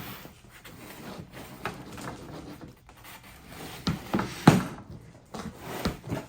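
Fluffy slime being worked by hand on a tabletop: soft rubbing and squishing with scattered knocks against the table, the loudest about four and a half seconds in.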